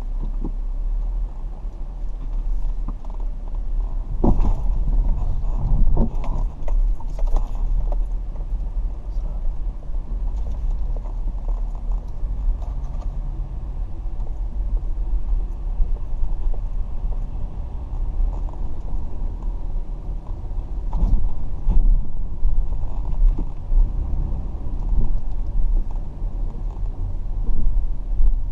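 Car driving: a steady low rumble with a few short knocks and rattles, clustered about four to eight seconds in and again near twenty-one seconds.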